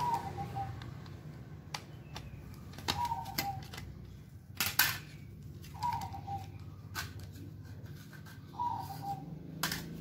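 A bird repeats a short call that drops in pitch, about every three seconds, four times. In between come sharp clicks and knocks of hard plastic as a small desk fan's blades and body are handled, the loudest a little before halfway.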